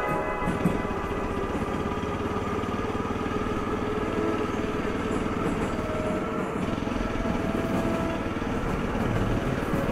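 Honda XR600R's big single-cylinder four-stroke thumper engine running steadily under way, a dense even firing pulse, heard from a helmet-mounted camera.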